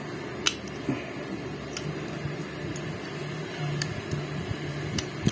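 A few faint, sharp metal clicks as screwdriver and needle-nose pliers work the springs off a Honda Click 125i's clutch shoe assembly, over a steady low hum.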